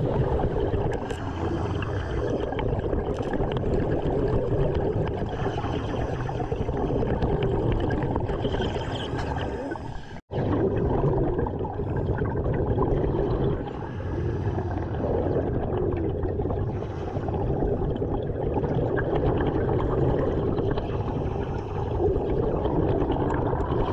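Underwater sound picked up by a diver's camera: a steady rushing and gurgling of water and air bubbles. It cuts out abruptly for an instant about ten seconds in.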